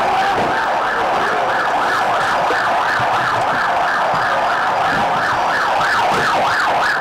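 Police vehicle siren in a fast yelp, sweeping up and down about three times a second, just after a slower wail.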